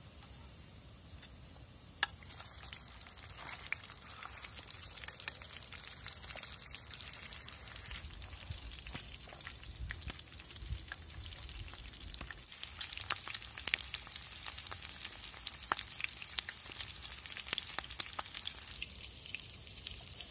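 Chicken pieces frying in hot oil in a pan: a steady sizzle with frequent pops and crackles, which grows busier about twelve seconds in. There is one sharp click about two seconds in.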